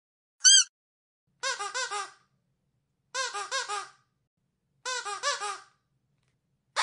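Squeaky dog toy being squeezed: one short high squeak, then three quick runs of about four lower squeaks each, about a second and a half apart.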